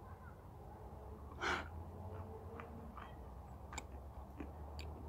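Faint, scattered mouth clicks of someone chewing clay, with a single breath about one and a half seconds in, over a low steady rumble.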